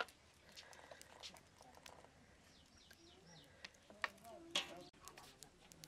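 Plastic cooking-oil bottle being handled at its cap: a few sharp plastic clicks and crackles, the loudest about four and a half seconds in, against faint birds chirping in the background.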